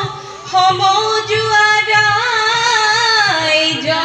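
Female voices singing a Jeng Bihu song, a melody carried in long held phrases with a short break just after the start and another near the end.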